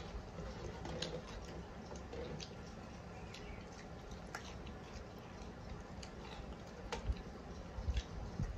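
Eating rice and curry by hand: scattered wet mouth clicks and chewing, with fingers working sticky rice, and a few low thumps near the end.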